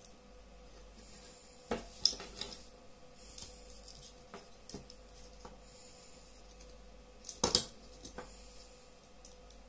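Hard plastic parts of a red earmuff cup and a Bluetooth headphone being handled and fitted together: scattered small clicks and clatters, with louder knocks about two seconds in and about seven and a half seconds in.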